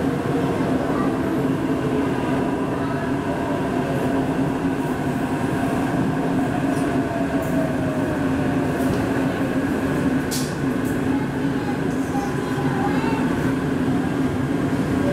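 Interior running noise of a Taipei Metro C381 electric train: a steady rumble of wheels on rail with a steady hum from the running gear, and a faint whine that slides in pitch near the start. A short high click comes about ten seconds in.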